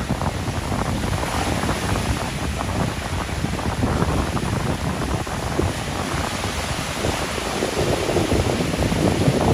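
Sea surf breaking and washing up a sandy beach, with wind rumbling on the microphone. The surf grows louder near the end.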